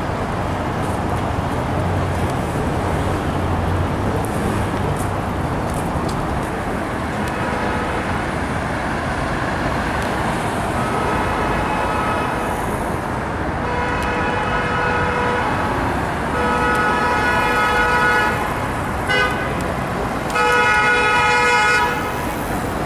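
Street traffic running steadily, with a vehicle horn sounding several times in the second half: long steady blasts of about two seconds and one short toot, growing louder toward the end.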